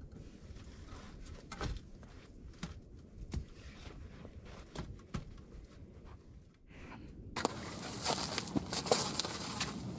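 Scattered faint knocks and shuffling as logs are shifted into place on a log bed frame. About seven seconds in, this cuts to dense crackling and snapping of split kindling catching fire in a sheet-metal box stove, with a sharp pop near the end.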